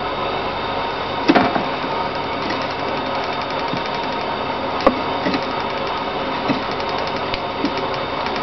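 Light plastic clicks and handling knocks as cloth hankies are pushed into a toy Miele washing machine's drum. They sit over a steady background hum, with the sharpest clicks about a second in and again near five seconds.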